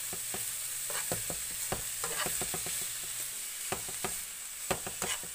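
Sliced napa cabbage, carrot and hot dog sizzling in a nonstick frying pan as they are stirred, with a steady hiss and irregular clicks and scrapes of the utensil against the pan.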